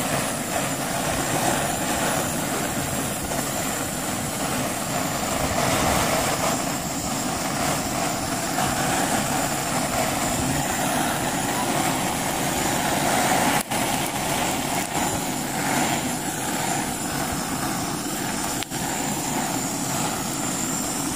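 Handheld gas torch burning with a steady blue flame as it singes the skin of a plucked turkey. The flame's hiss holds steady throughout, dropping out very briefly twice in the second half.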